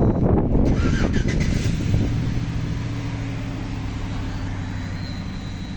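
2008 Chevrolet Silverado pickup's engine running, rough and loud at first, then settling into a steady idle that slowly fades.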